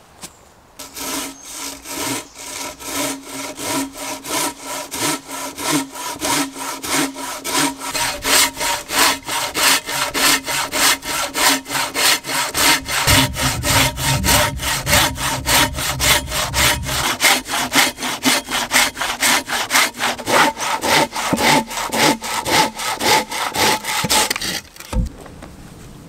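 Hand saw cross-cutting a log, in steady back-and-forth strokes at about three a second. The sawing stops suddenly near the end, followed by a single thump.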